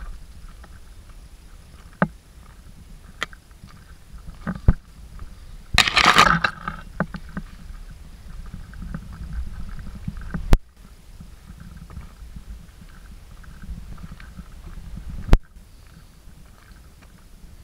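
A hiker's footsteps on a stony, leaf-covered mountain path, with handling noise on the handheld camera: a low rumble, several sharp knocks, and a brief loud rustle about six seconds in.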